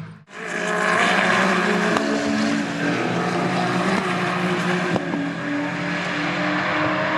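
GT race car engine running hard at high revs, its pitch shifting about two and again about five seconds in, with a short sharp crack near the second shift.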